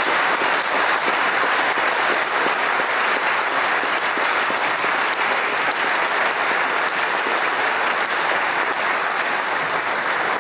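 An audience applauding: dense, steady clapping from many hands.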